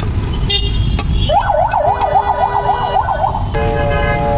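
A warbling electronic siren, its pitch swinging quickly up and down about four to five times a second for about two seconds. It is followed near the end by a steady horn blast, over a constant low rumble of street traffic.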